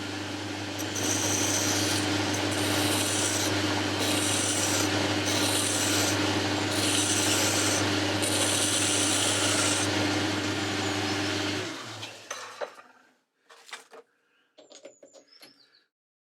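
Hand file being stroked across the edge of a mild-steel part spinning in a Boxford lathe, deburring it, about one scraping stroke every second and a bit, over the lathe's steady motor hum. The lathe is switched off near the end and runs down, followed by a few light clicks.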